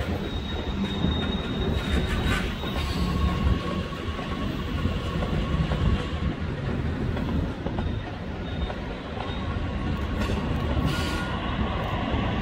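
Metra Electric Highliner electric multiple-unit commuter train rolling past over switches: a steady rumble of steel wheels on rail, with thin wheel squeals and a few sharp clacks as the wheels cross the switch points.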